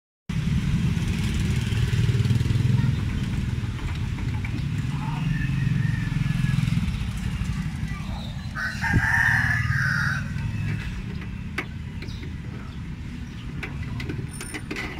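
A steady low rumble, with a short animal call about nine seconds in.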